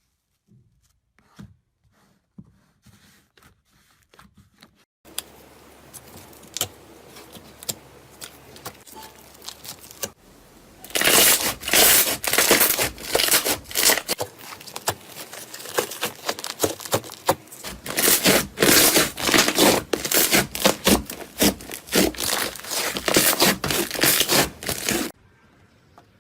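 Hands squishing and poking slime. Sparse soft, sticky clicks come first, then about eleven seconds in a dense run of loud crackling pops begins and cuts off suddenly near the end.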